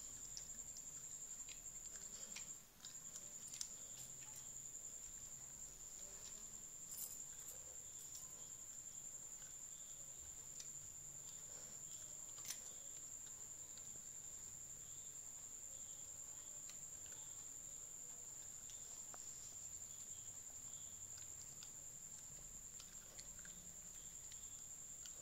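Faint, scattered crunching clicks of a Pomeranian chewing long beans, with a few sharper ticks, over a steady high-pitched whine.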